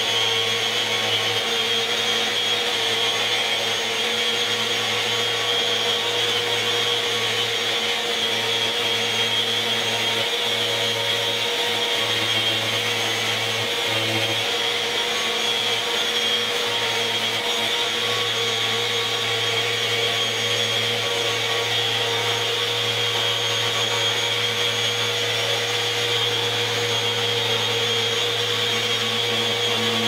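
Random orbital sander running steadily while sanding a walnut live edge, with a dust extractor drawing through its hose.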